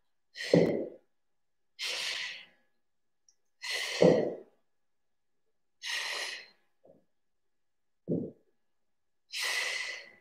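A woman's hard exhalations from exertion, five breaths out about two seconds apart, two of them with a low voiced grunt.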